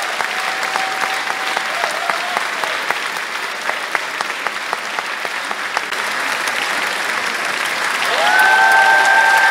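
Theatre audience applauding steadily during a curtain call, a dense clapping with no let-up. It grows louder near the end, where a long held cry rises out of the crowd above the clapping.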